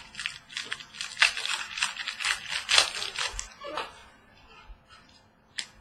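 Trading cards being handled and flicked through, a quick run of short papery flicks and rustles that dies away after about four seconds, with one sharp click near the end.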